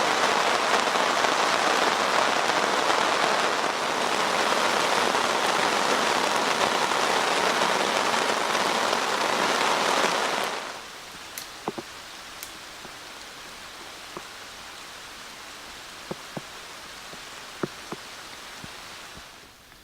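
Heavy rain pouring down in a steady, loud wash, which drops off suddenly about ten seconds in. After that it is much quieter, with only scattered single drips.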